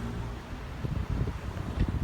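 Low rumble of a passing electric train, with irregular low thumps, mixed with wind buffeting the microphone.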